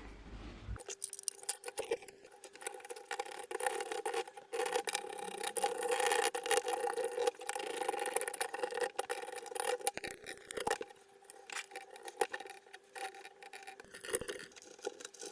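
Hands fitting PC hardware, most likely a CPU heat sink: irregular small clicks, taps and scrapes of metal and plastic parts being seated and fastened, over a faint steady hum that stops about 13 seconds in.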